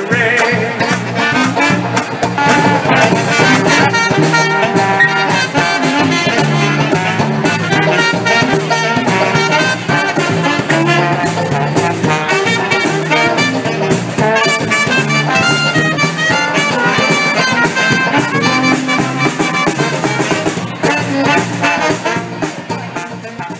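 Traditional jazz band playing an instrumental swing passage: trumpet, trombone and saxophone over banjo, drum kit and double bass. The music fades out at the very end.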